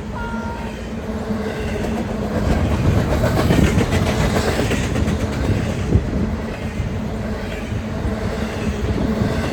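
BNSF train's railcars rolling past close by, their wheels clacking over the rail joints with a heavy rumble. The sound swells over the first few seconds and then holds steady.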